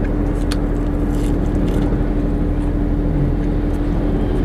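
Steady low hum of a car running at idle, heard from inside the closed cabin, with one constant droning tone. A few faint clicks of chewing on fried tofu balls sit on top.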